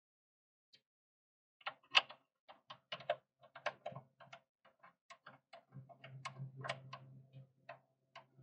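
Ratchet wrench clicking in short, uneven strokes while tightening the oil drain plug on the oil pan. A low steady hum joins about six seconds in.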